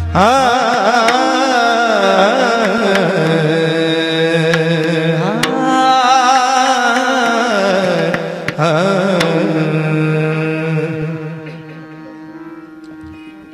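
Devotional bhajan singing: a voice in long, ornamented sliding notes over a steady drone accompaniment, fading away in the last few seconds.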